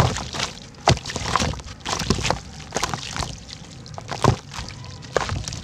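Red dirt and sand-cement cylinder chunks crumbling in water: an irregular run of plops and sloshes as pieces break off and drop in.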